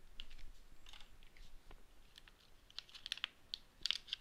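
Hands handling a clear plastic blister tray and its cardboard insert: irregular small plastic clicks and crackles.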